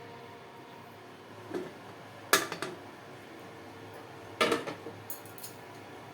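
Kitchen utensils and cookware knocking and clattering in two main short bursts, about two seconds apart, with a softer knock before them and a few light clicks after. A steady hum runs underneath.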